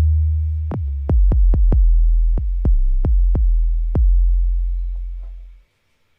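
Electronic drum-kit sounds from a software drum kit in Logic Pro, triggered by hand from a keyboard controller's drum pads. There are about ten hits of a deep, booming kick in an uneven rhythm, each with a long low tail. The last hit rings out and fades to silence near the end.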